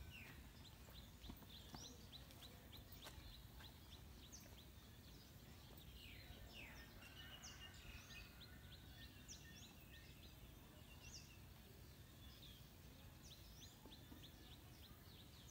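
Faint outdoor bird calls: a run of short high chirps, several a second, with occasional short whistled notes, over a low background rumble.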